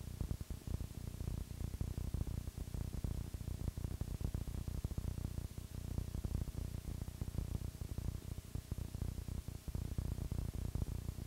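Static from a blank, unrecorded stretch of videotape: a dense, irregular low rumbling crackle with a faint hiss above it.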